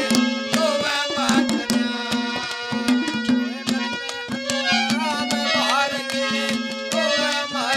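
Instrumental interlude of a folk devotional song (bhajan): a hand drum plays a quick, busy rhythm under a melody instrument holding steady notes.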